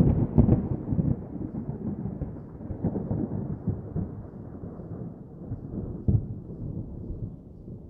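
Thunder rolling with crackling strokes, a low rumble that fades away over several seconds, with a smaller swell about six seconds in.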